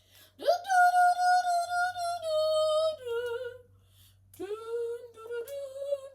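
A high solo voice singing long held notes without accompaniment: a first note swoops up and is held for a couple of seconds before stepping down, then after a short breath a second, lower note is held and lifts slightly near the end.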